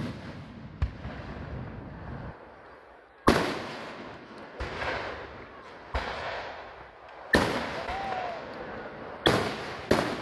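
Aerial fireworks bursting: a run of sharp bangs a second or two apart, the loudest about three seconds in, each trailing off in a fading crackle and rumble.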